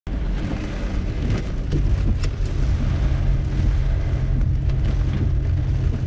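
Steady low road-and-engine rumble heard from inside a Daihatsu Hijet Cargo van driving through typhoon wind and rain, with a few light ticks about two seconds in.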